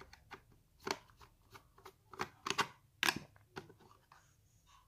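A Phillips screwdriver backs the small screw out of the plastic battery-compartment cover on a Tefal bathroom scale, and the cover is then handled. The sound is a series of light, irregular clicks and scrapes of metal on plastic.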